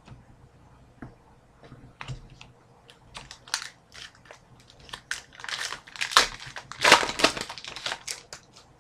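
A trading-card pack wrapper being torn open and crinkled in the hands: a run of crackles, scattered at first, growing thick and loud from about five to eight seconds in.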